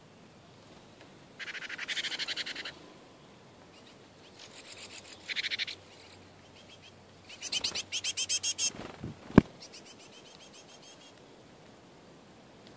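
Great tits calling in bursts of rapid, repeated chattering notes, about a second each, three times, then more faintly near the end. A single sharp click comes about nine seconds in.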